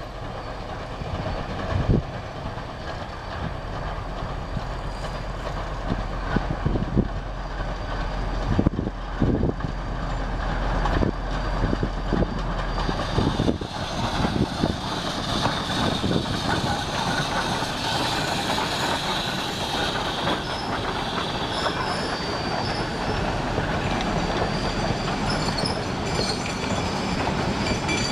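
Geared steam locomotive working steam as it approaches and passes, growing louder, with sharp irregular beats through the first half. Its passenger cars then roll by, wheels squealing and clattering on the rails.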